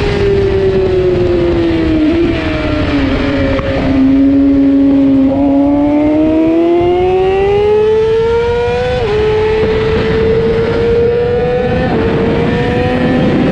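600-class racing motorcycle engine heard from on board, working through a corner: its pitch falls as the bike slows, then climbs steadily under acceleration, dropping sharply at upshifts about nine seconds in and again near the end.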